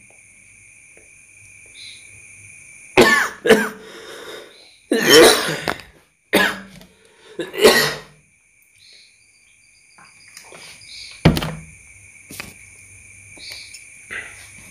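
A man coughing and clearing his throat in several short bursts, followed later by a knock and a click over a faint steady high whine.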